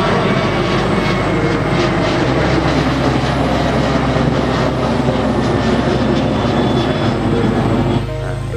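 Jet engine noise from a Boeing 737-900ER's twin CFM56-7B turbofans at take-off thrust as it climbs out, a loud, steady noisy rumble. About eight seconds in it drops and background music takes over.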